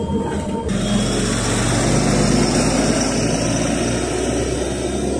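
Road noise inside a moving bus, cut off abruptly less than a second in, then city buses' engines running at a stop with surrounding street traffic, a steady low hum.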